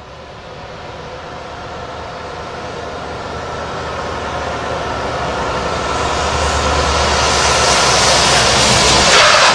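Volvo truck approaching, its engine and road noise growing steadily louder over several seconds; near the end the low engine hum drops away and a harsher rushing noise takes over.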